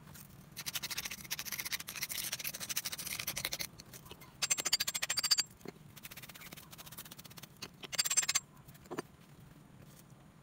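Brush scrubbing sand off a freshly cast aluminium piece: rapid rasping scratches in three bursts, the first about three seconds long, the second shorter and loudest, the third brief near the end.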